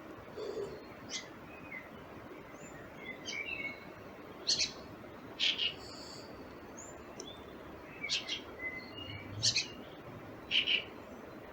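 Wild songbirds calling and singing in spring: short sharp chirps and brief whistled phrases of varied shape, coming at irregular intervals over a steady low background hiss.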